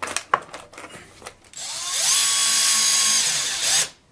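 A few handling clicks, then a Porter-Cable cordless drill spins up about one and a half seconds in and drives a 3/4-inch screw through the vise's base into a wooden board. It runs steadily for about two seconds and stops just before the end.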